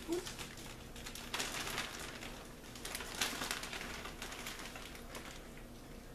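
Clear plastic zip-top bag crinkling and rustling as it is opened and a doll is pulled out of it, louder in two bursts about a second and a half in and about three seconds in.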